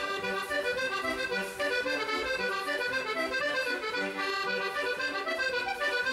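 Scottish country dance music for a reel, led by accordion, played at a quick, even beat.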